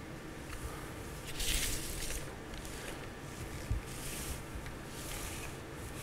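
Plastic navigation triangles sliding and scraping across a paper nautical chart in several short strokes, the longest about a second and a half in.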